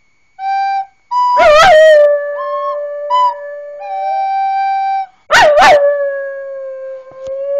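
Dog howling along with a recorder. Short, steady recorder notes come in turn with two loud, wavering howls about a second and a half and five and a half seconds in. Each howl draws out into a long held tone that slowly falls in pitch.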